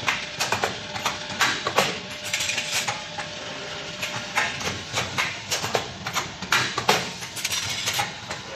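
Metal bucket handle making machine running: irregular metallic clinks and clatter as bent wire bucket handles slide down the chute and pile onto the collecting rack, over a faint steady machine hum.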